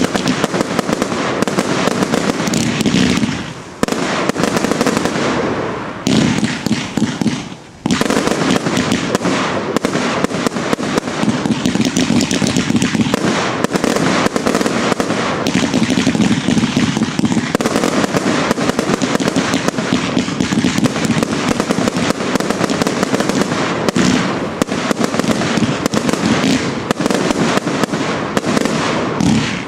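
Fireworks finale barrage: a dense, continuous run of aerial shells and fountains firing and bursting, with brief lulls about three and a half and seven and a half seconds in.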